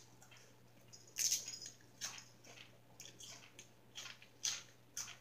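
A person chewing food with wet, open-mouthed smacks close to the microphone: a string of short sharp smacks about every half second, the loudest about a second in.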